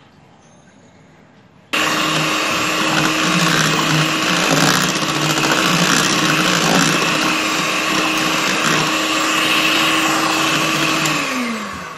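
Electric hand mixer switched on about two seconds in, its beaters running steadily through cake batter in a bowl, then slowing in pitch and stopping near the end.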